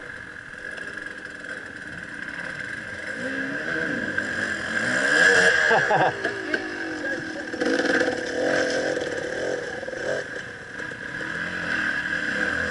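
Dirt bike engines revving and changing pitch as riders come through a creek crossing, one bike passing close about five to six seconds in and another rising in pitch near the end. A steady high whine runs underneath.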